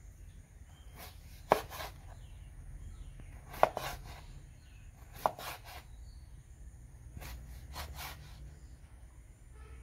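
Large kitchen knife cutting young jackfruit on a wooden chopping board: about seven sharp knocks of the blade hitting the board at uneven intervals, three of them much louder, with quieter slicing through the fruit in between.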